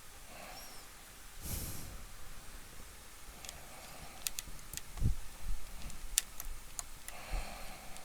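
Handling noises while working on a stage light: a short rustle, then a scatter of small sharp clicks and a soft thump as parts and tools are handled.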